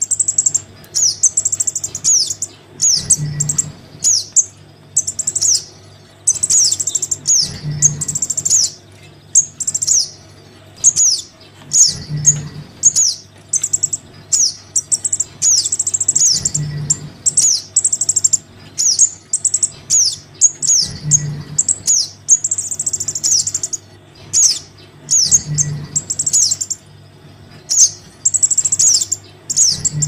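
Sogon nestlings' begging calls to a parent bird: rapid clusters of high, thin chirps, each sliding downward, repeating in a loop about every four and a half seconds over a faint low hum. It is a lure recording used to draw adult sogon down.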